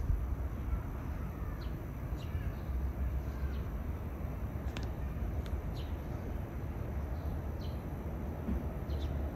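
Outdoor ambience: a steady low rumble with about ten short, high chirps scattered through it, like small birds calling.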